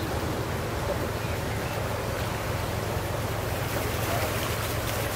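Motor yacht's engine running with a low steady drone as the boat cruises past, over a haze of river water and wind.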